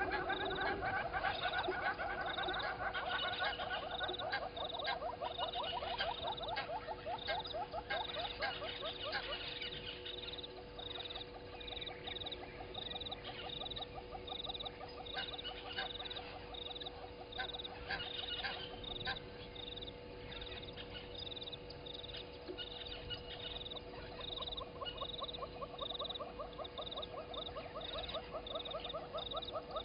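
A dawn chorus of frogs calling at a waterhole: rapid rattling trills that fade after about nine seconds and build again near the end. Short high notes repeat evenly throughout.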